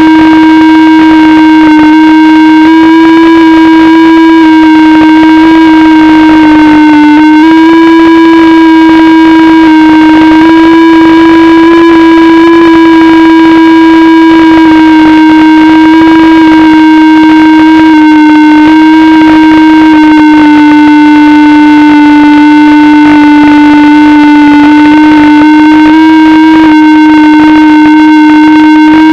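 FPV drone's motors humming steadily, the pitch drifting slightly up and down as the throttle changes.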